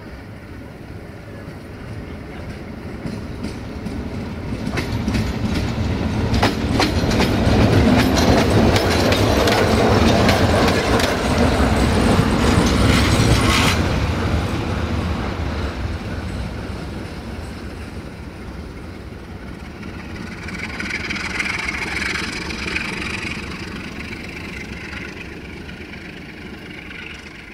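060-DA (LDE2100) diesel-electric locomotive passing with its passenger coaches: the diesel engine running and the wheels clicking over rail joints, growing louder to a peak in the middle and then fading as the train goes by. A high-pitched squeal rises briefly about twenty seconds in.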